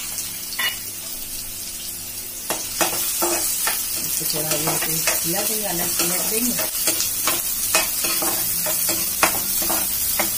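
Chopped onions and green chillies sizzling in hot oil in a non-stick kadhai. From about two and a half seconds in, a metal spatula stirs them, with repeated scrapes and taps against the pan.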